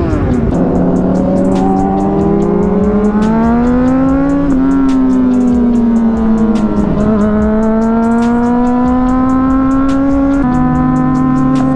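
Sport motorcycle engines accelerating on the road. The rider's engine climbs in pitch, eases off, dips and climbs again, with a gear change near the end, while other bikes run alongside.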